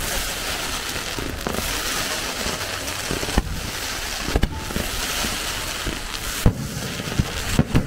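Fireworks display: a steady crackling hiss from bursting stars and sparkling fountains, broken by several sharp bangs, the loudest a little past halfway through.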